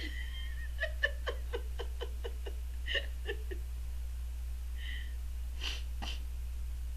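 A woman laughing in a quick run of short bursts, about four a second, for a few seconds, followed a little later by two short sniffs.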